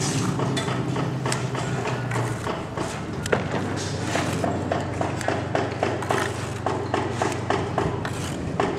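Repeated sharp knocks of a hand tool worked against a concrete curb edge. They come irregularly at first, then settle into a steady beat of about three knocks a second, over a low steady hum.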